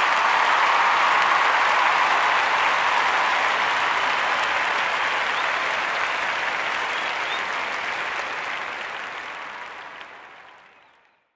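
Applause from a crowd, a steady dense clapping that fades out about ten seconds in.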